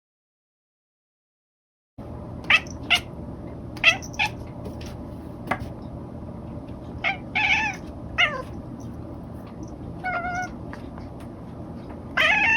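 Domestic cat meowing over and over: after about two seconds of silence, a string of short meows, then a longer, louder meow near the end.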